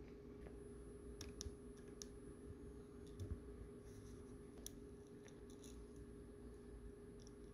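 Near silence: a faint steady hum with a scattering of small, faint clicks.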